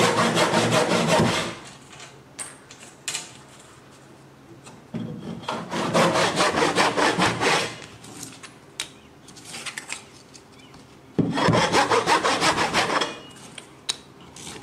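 A brass-backed hand saw cuts oak spline stock in three short bouts of quick strokes, each about two seconds long. Light knocks of wood come between the bouts.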